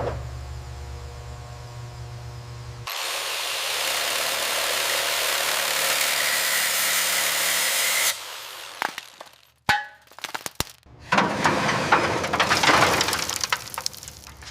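Workshop power-tool noise in edited pieces: a low steady hum, then about five seconds of loud hissing, grinding-like noise that starts and stops abruptly, a few sharp clicks, and a dense stretch of rattling metal tool noise near the end.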